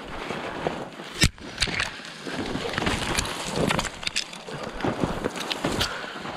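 Close rustling and scraping of snow-laden spruce branches and clothing brushing against the microphone, with scattered crackles and snaps and a sharp knock about a second in.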